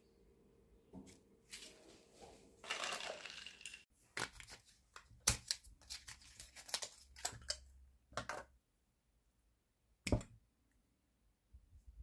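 Small cardboard and plastic packaging being handled and opened by hand: a short rustling tear about three seconds in, then a run of sharp clicks and taps, with one more click near the end.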